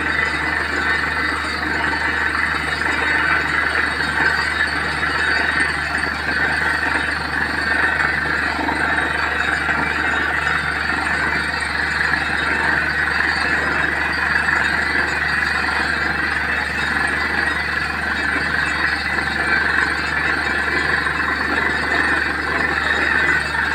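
Borewell drilling rig running steadily, a constant heavy machine hum with a rushing hiss, as water gushes and splashes out of the bore: the well has struck a strong flow of water.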